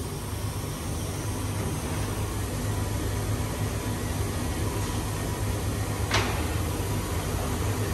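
Vacuum tester's pump on a valve-seat machine running with a steady low hum, as the valves of an aluminium cylinder head are checked for sealing in their seats. A short click sounds about six seconds in.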